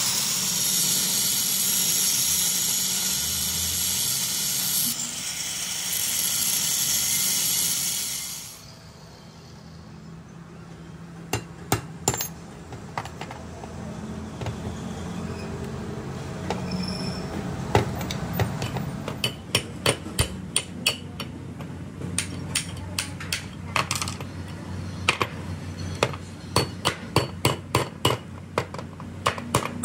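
Angle grinder cutting into the steel universal-joint yoke of a truck drive shaft for about eight seconds, then stopping. After a short pause, hammer blows on the steel yoke, a few scattered strikes at first and then rapid runs of strikes, knocking the universal joint apart.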